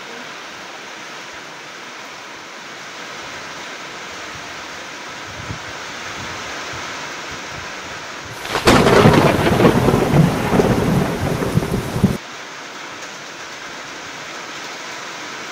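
Steady rain hiss, with a loud crackling thunderclap coming in about eight seconds in. The thunder lasts some four seconds and cuts off abruptly, like an added sound effect.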